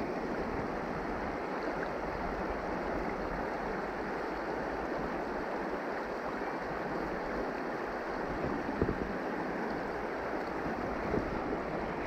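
Creek water flowing with a steady rushing noise, with two brief low bumps near the end.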